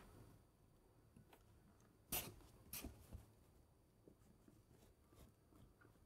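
Faint rustling of a brown paper bag: a few short crinkles about two to three seconds in, otherwise near silence.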